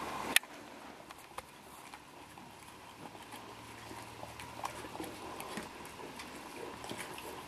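A dog licking ice cream out of a plastic cup on carpet: faint scattered licking and cup clicks, with one sharp knock about half a second in.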